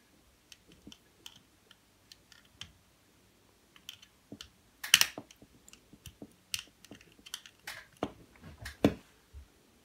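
Scattered small clicks and taps of a screwdriver and a plastic wiring connector block being handled, with the sharpest clicks about five seconds in and near the end.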